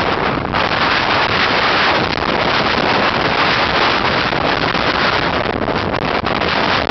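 Hurricane Sandy's storm wind buffeting the microphone in a loud, steady rush, over heavy surf breaking against a seawall at high tide.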